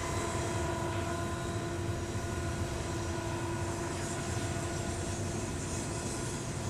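Double-stack intermodal freight cars of a BNSF train rolling past on the track, a steady rumble of wheels on rail. Thin, steady squealing tones from the wheels ride over it and fade away over the last few seconds.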